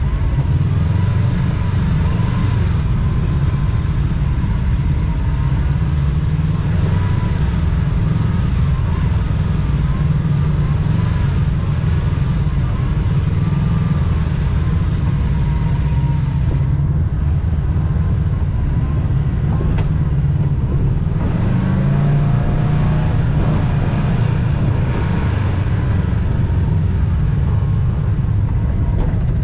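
Side-by-side off-road vehicle engine running, a steady low rumble.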